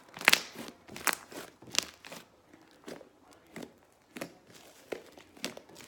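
Fluffy slime being squeezed and stretched by hand, giving off a series of short crackling pops about every two-thirds of a second, loudest near the start and growing fainter.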